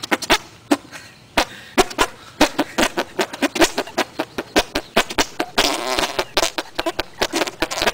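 Several people making armpit farts together, hands cupped in their armpits and arms pumped, giving a rapid, irregular, overlapping series of short fart-like pops, several a second.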